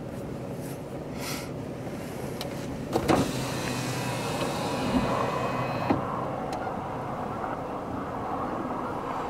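Steady road-side rumble with vehicle noise that swells for a few seconds about three seconds in, as of a vehicle passing, with a few sharp knocks, the first and loudest about three seconds in.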